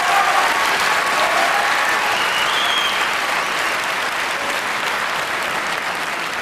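Audience applauding, with a few voices calling out in the first three seconds; the clapping slowly gets quieter.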